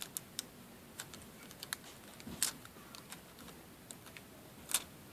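Light, irregular clicks and ticks of thin nail transfer foil being pressed down and pulled up off a plastic practice nail, with a louder click about halfway through and another near the end.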